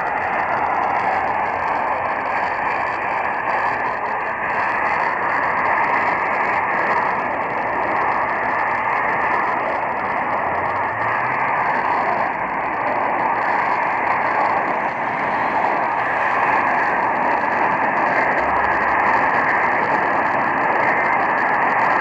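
Steady AM radio static hiss from the small speaker of a Sangean portable radio tuned to the AM band, with no programme audio coming through.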